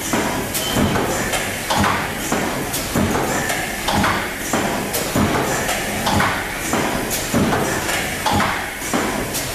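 SP-U10 suppository forming, filling and sealing machine running: a regular clatter of mechanical strokes, about two a second, over continuous machine noise.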